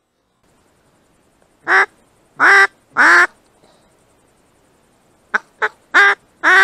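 Duck quacking loudly: seven separate quacks in two groups, three about two seconds in and four near the end, the middle two of those short.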